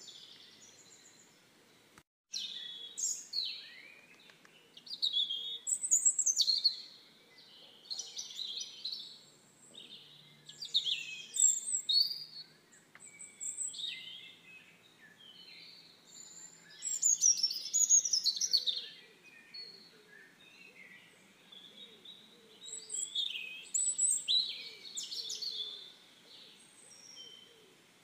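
Songbirds chirping and singing outdoors, a steady run of short, high phrases with some louder bursts.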